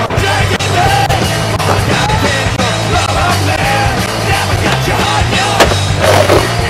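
Rock soundtrack with a punk edge: a singer's shouted, sung vocal line over a full band.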